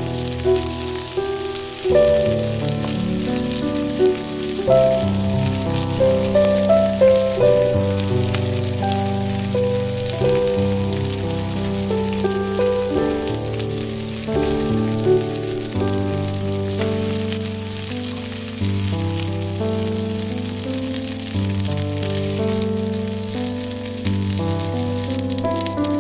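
Background music with a melody and a bass line, over shrimp sizzling in hot oil in a frying pan.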